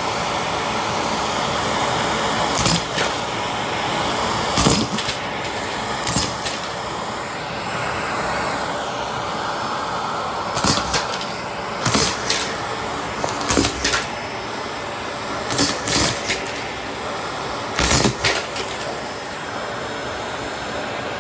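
Bosch BGS21X320 bagless vacuum cleaner running steadily with its carpet brush, with sharp clicks and rattles at irregular moments, about a dozen in all, as buttons are sucked up and clatter through the hose.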